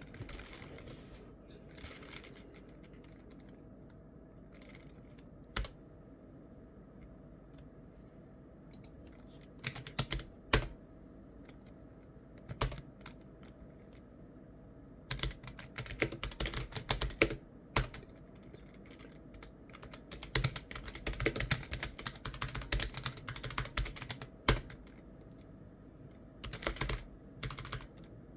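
Computer keyboard being typed on: scattered single key presses at first, then fast runs of clicking keystrokes with short pauses between them.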